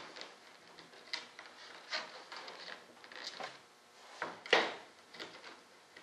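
Hand work on an RC model part at a workbench: irregular short scrapes and light knocks about a second apart, with one louder, longer scrape about four and a half seconds in.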